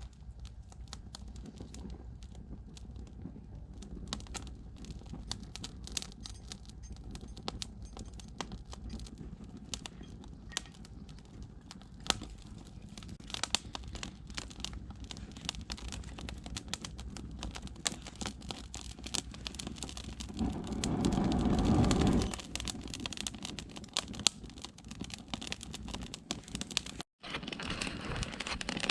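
A fire pit being built and lit: crumpling and snapping of paper and kindling with many sharp crackles. About twenty seconds in, a louder rushing noise lasts a second or two.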